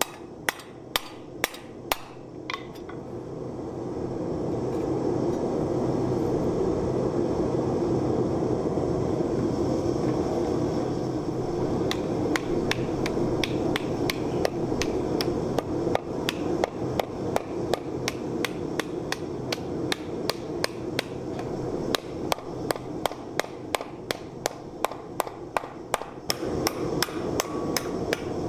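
Hand hammer blows on a steel wok blank being dished into a hollow in a wooden stump: a quick run of strikes at the start, then after a gap, steady hammering at about three blows a second. Under it, from a few seconds in, the steady roar of a lit gas forge.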